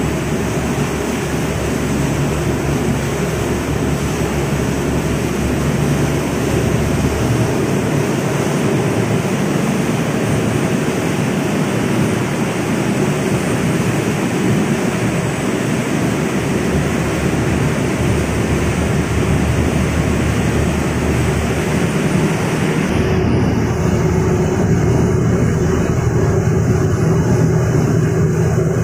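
Fast ferry's engines droning steadily at speed, mixed with the rush of the churning wake and the air on deck. About three-quarters of the way through, the low hum grows stronger and the hiss above it thins out.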